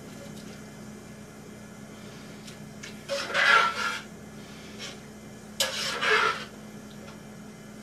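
A pasta spoon lifting and stirring pasta in a large pot of boiling water to work oil through it. Two scraping strokes come about three and about five and a half seconds in.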